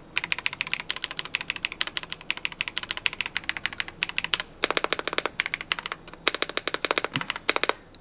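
Fast typing on a KZZI K75 Pro 75% mechanical keyboard with linear switches, which the typist takes for red switches: a rapid, uneven run of keystroke clicks, growing into quicker flurries from about halfway through.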